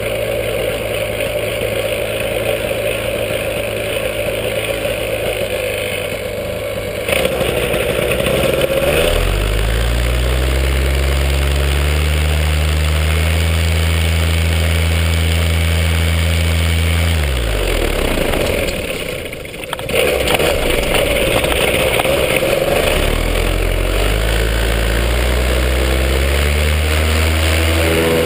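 An engine running and being throttled: it steps up in pitch and loudness about eight seconds in, holds there, eases back around seventeen seconds in, then opens up again about twenty seconds in.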